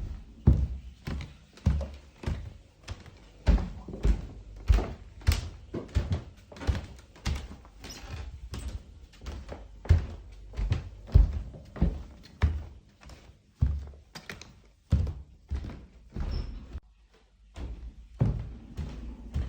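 Footsteps walking at a steady pace, each step a dull thud, about one and a half to two steps a second. The steps stop for a second or two near the end, then start again.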